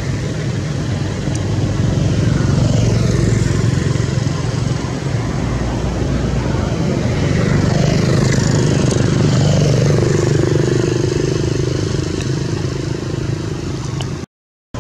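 Motor vehicle engines running in the background, a steady low hum that swells twice as vehicles pass, then cuts out briefly near the end.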